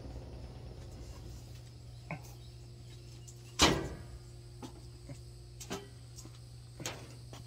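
Scattered knocks and clicks, the loudest a single sharp knock about three and a half seconds in, over a steady low hum.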